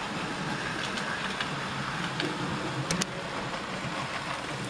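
00 gauge model train running on the layout's track: a steady rumble of wheels and motor, with a couple of sharp clicks about three seconds in.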